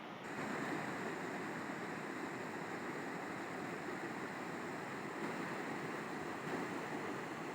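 River water flowing in a steady rush. It turns slightly louder and brighter just after the start.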